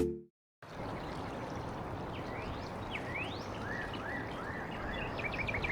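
Steady rushing of a creek, with a bird calling over it: several rising whistled notes, then a quick run of short chirps near the end.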